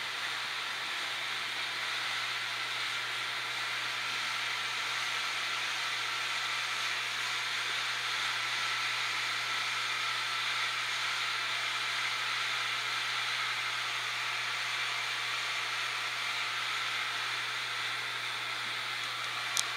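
Steady hiss with a low hum beneath it; one sharp click near the end.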